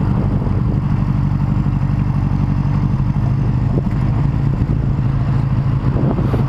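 Heavy road motorcycle's engine running with a steady, even note as the bike is ridden along.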